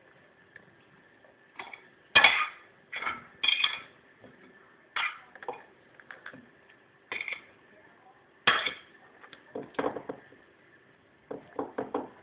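Domestic cat biting and chewing eggshell: short, crisp cracks and crunches in irregular bursts a second or two apart, with a quick cluster of them near the end.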